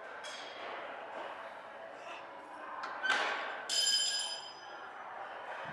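Metal gym weights knocking together: a loud thud about three seconds in, then a short ringing clank that dies away within a second.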